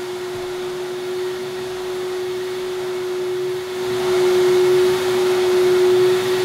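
Vacuum truck suction hose running: a steady hum with a hiss over it. It grows louder and hissier about four seconds in, as the hose draws up sediment from the bottom of the sump chamber.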